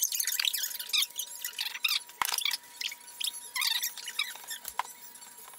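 Gloved hands wiping paint-stripper sludge off a cast-iron vise body with a paper towel: quick, irregular squeaks and rustles of plastic glove, towel and sheeting, with a couple of sharp clicks.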